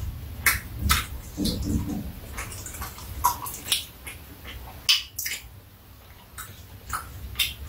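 Wet mouth clicks and smacks of people chewing sticky steamed rice cake, several a second, with a brief low murmur about one and a half seconds in.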